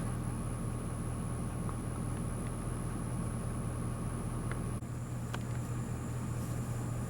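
Steady low hum with even background noise; the background shifts abruptly about five seconds in.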